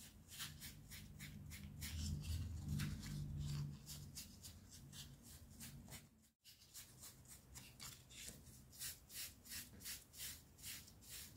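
Faint, soft brushing of a paintbrush laying paint onto an EVA foam sepal, a steady run of short strokes about two or three a second, breaking off briefly about six seconds in.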